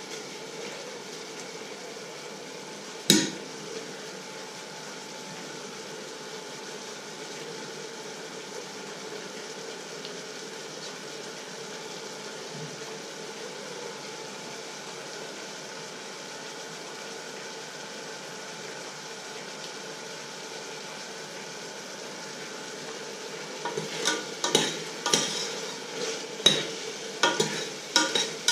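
A metal spoon knocking and scraping against a stainless steel saucepan: one sharp clink about three seconds in, then a quick run of clinks and scrapes over the last few seconds. A steady low hiss lies beneath throughout.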